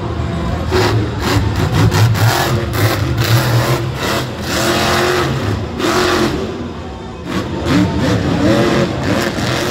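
Monster truck engine revving hard, its pitch climbing and dropping again and again.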